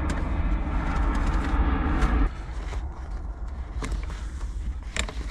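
Steady low rumble of a car running, which cuts off abruptly about two seconds in. A quieter stretch follows with a few sharp clicks.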